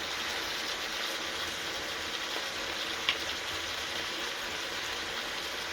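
Chicken and mixed vegetables sizzling steadily in hot oil in a frying pan, with one light click about three seconds in.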